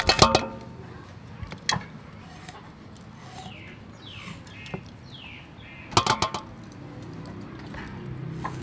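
Knife knocking on a wooden chopping board while a garfish is scored, with metallic clinks: a short cluster of knocks at the start and another about six seconds in, a few single taps between. A bird calls with several falling chirps in the middle.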